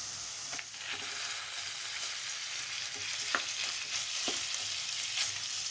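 Vegetables sizzling in oil in a nonstick kadai on low heat while boiled macaroni is stirred in with a spatula: a steady frying hiss with a few short scrapes and taps of the spatula against the pan.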